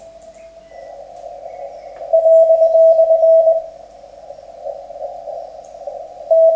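Amateur radio transceiver sounding a Morse (CW) tone on the 40 m band, over the narrow hiss of its CW filter. A loud, steady tone holds for about a second and a half a couple of seconds in, and comes back near the end.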